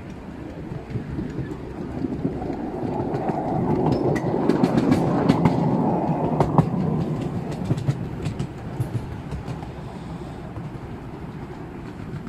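Miniature railway train running along its track, a steady rumble with sharp wheel clicks over the rail joints, growing louder through the middle and easing off toward the end.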